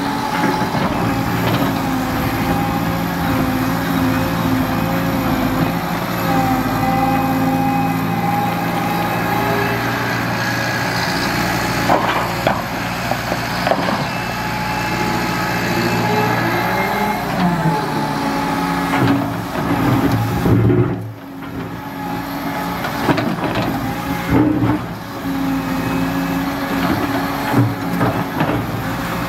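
Liebherr R930 crawler excavator's diesel engine and hydraulics working under load as it digs and swings, a steady engine note with a hydraulic whine that shifts in pitch as the boom and bucket move. Scattered knocks and scrapes come from the steel bucket against soil and stone.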